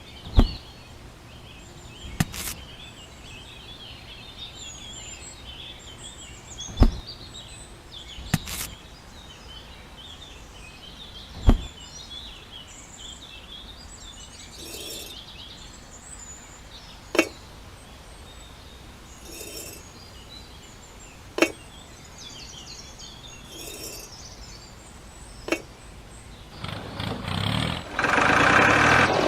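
Sharp single knocks or taps every few seconds, with birds chirping throughout. Near the end a motor starts running loudly.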